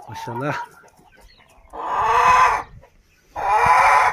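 Chickens calling: two loud, harsh calls of about a second each, one near the middle and one near the end.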